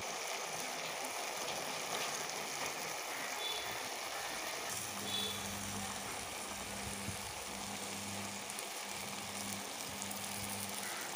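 Raw duck pieces and tomato-onion masala frying in a clay pot: a steady sizzle. From about five seconds in, a low steady hum runs under it.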